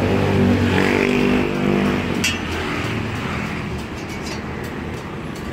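A motor vehicle engine running close by, loud for the first two seconds or so and then fading into general street traffic noise. A short click about two seconds in.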